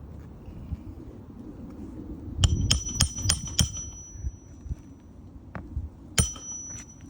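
Hammer striking a steel roof snake to drive a shingle nail under the overlapping shingle: a quick run of five sharp, ringing metal strikes, then one more a few seconds later, each leaving a high ringing tone.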